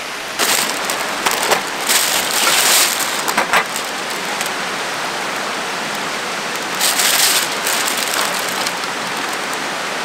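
Mountain stream rushing steadily, with several bursts of crinkling from a thin plastic bag being handled, clustered in the first three seconds and again about seven seconds in.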